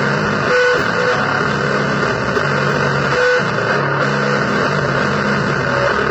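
Harsh noise music: a loud, dense distorted wash with low held notes that come and go in blocks of about a second, and short high tones cutting through now and then.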